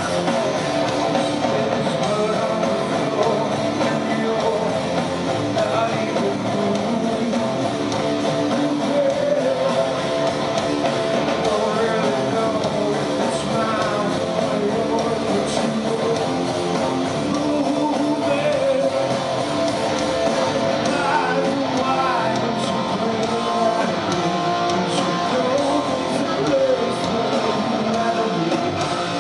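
A rock band playing live, with guitars to the fore.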